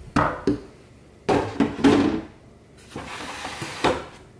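Black plastic tub being lifted and set on a slatted wooden bench: a few hollow knocks and bumps, the loudest about one and a half to two seconds in, then a scrape ending in a click.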